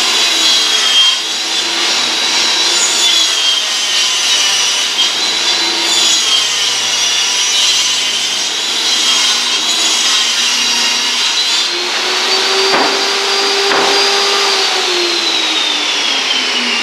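Table saw ripping a sheet of plywood, the motor's pitch wavering as the blade is loaded. Two knocks come about three-quarters of the way through. Near the end the saw is switched off and its whine falls as the blade spins down.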